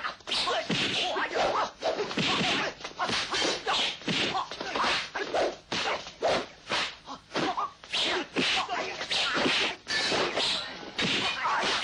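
Kung fu film fight sound effects: a fast, almost unbroken run of punch and kick impacts mixed with swishes of limbs and clothing.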